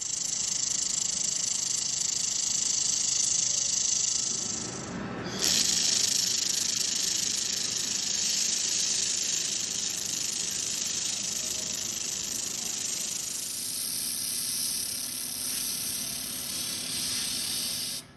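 Laser welder running with a steady high hiss; it dips just before five seconds in and comes back louder, then cuts off.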